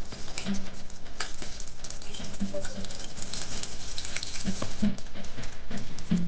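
Hot cooking oil crackling and sizzling steadily with many fine pops, lumpiang shanghai rolls deep-frying.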